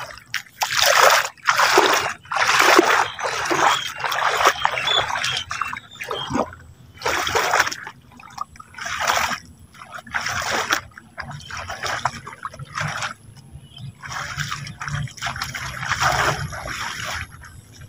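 Water splashing and trickling in a run of short, irregular bursts, roughly one a second.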